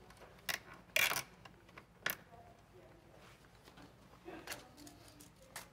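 A nylon zip tie ratcheting as it is pulled tight around a cable: three short rasps in the first two seconds, the middle one the longest, followed by faint handling sounds.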